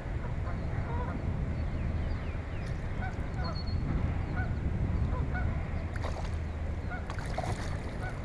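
Short bird calls repeating about every half second over a steady low rumble, with two brief splashes of water near the end as the carp is let go in the shallows.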